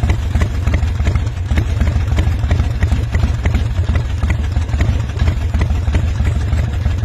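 Harley-Davidson Sportster's fuel-injected, air-cooled V-twin idling low with an uneven, loping beat, the 'potato potato' idle. The idle is being turned down by hand with a manual idle-adjustment screw fitted in place of the IAC.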